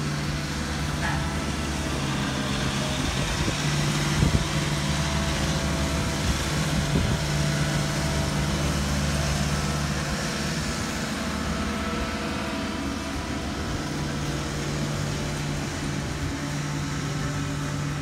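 Tandem steel-drum asphalt roller running steadily with a low engine hum as it rolls over fresh asphalt, with two brief knocks about four and seven seconds in.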